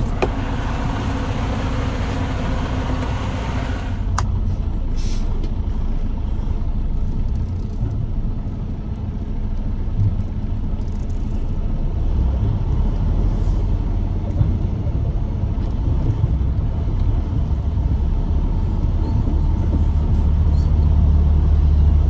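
Diesel semi-truck engines running, a steady low rumble that gets louder near the end as a truck draws close. A steady hiss covers the first four seconds and cuts off sharply with a click.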